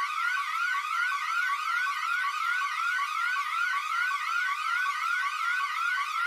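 Siren sounding in fast, evenly repeating rising sweeps, about three a second, each climbing in pitch and then dropping back abruptly.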